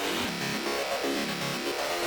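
Arturia Pigments 2 software synthesizer playing a preset: a thick electronic sound whose pitch slides up and down, without break.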